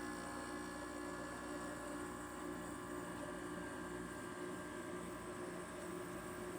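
Goldstar window air conditioner running with its compressor on and the fan on high: a steady hum and air hiss with several steady tones. About halfway through, one low tone in the hum drops away; the owner says its tune always changes like this and goes back.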